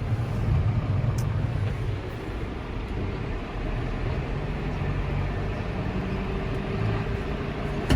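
John Deere 6105R tractor running steadily under load with a low, even engine drone while working a snow blower.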